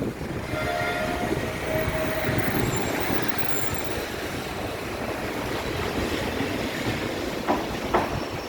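Steady rumble of a passing vehicle, with a few brief thin squealing tones about a second in.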